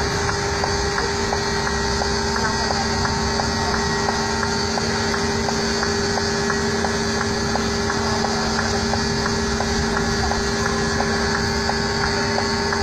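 Diesel truck engine running steadily, heard from inside the cab, blended with a constant low hum and a faint regular ticking.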